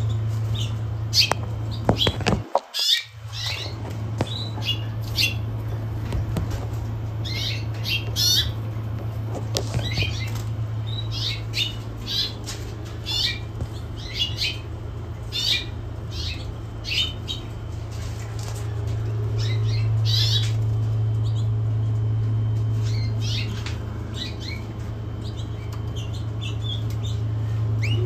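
Caged canaries and canary mules calling, many short, sharp chirps one after another, over a steady low hum.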